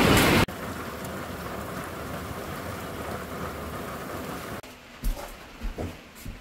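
Rain falling steadily: a heavy downpour for the first half second, then cutting abruptly to a softer, even patter, which drops again near the end. A few dull knocks sound during the last second or so.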